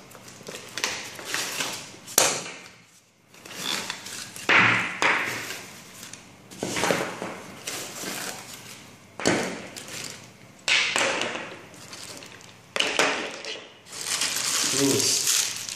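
Packing noise as security cameras are unpacked: plastic bags crinkling and foam and cardboard rubbing, with irregular rustles and several sharp knocks.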